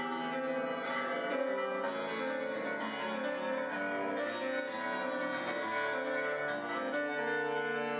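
Solo grand piano being played, a continuous flow of notes and chords.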